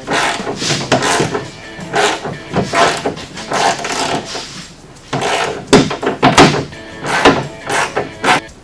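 Irregular knocks and clicks of plastic trim on a Polaris RZR's center console, handled and snapped back into place.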